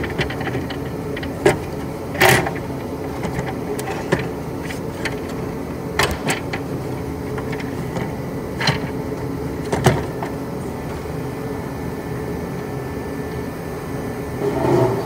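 A steady mechanical hum, with a handful of short clicks and knocks of parts and tools being handled scattered through it.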